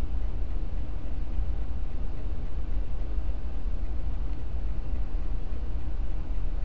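Steady low rumble of background noise that does not change, with no distinct clicks or knocks.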